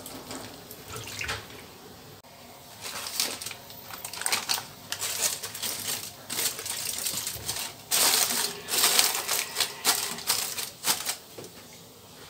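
Parchment paper and then aluminium foil crinkling and rustling as they are spread and pressed over a baking dish. The crackling comes in irregular bouts and is loudest in the last third.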